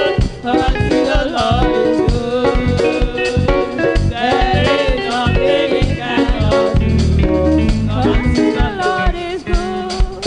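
Live gospel praise music: a Premier drum kit keeps a steady beat under singing voices and guitar, with heavy bass notes about seven seconds in.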